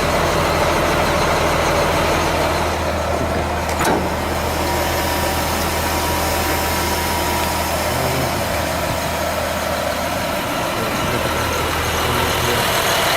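Caterpillar C7 diesel engine of a Blue Bird All American school bus idling steadily, with a single click about four seconds in.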